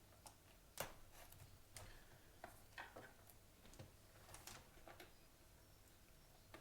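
Faint, scattered clicks and taps of hands handling a trading-card box, the loudest about a second in.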